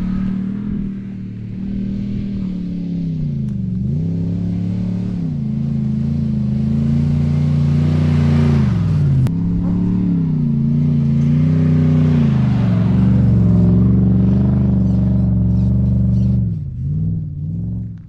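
A 4WD vehicle's engine running under load, its pitch dipping and climbing back again several times. It drops away near the end.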